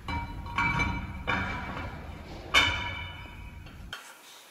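Metal parts clanking against a cast-iron engine block, about three knocks, each ringing briefly with a metallic tone. The sound cuts off to near silence near the end.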